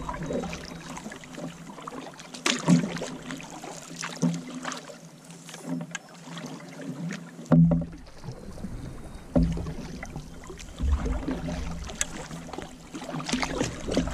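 Canoe paddles dipping and splashing in lake water with each stroke, about one stroke every one and a half to two seconds, over a steady wash of moving water.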